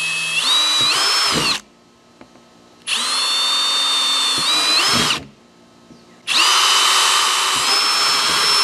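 Cordless drill boring starter holes through a plastic barrel lid, its motor whining in three runs with short pauses between. In each run the whine steps up in pitch partway through.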